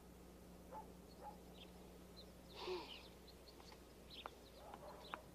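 Near silence, broken by a few faint, short chirps and clicks, the loudest about halfway through.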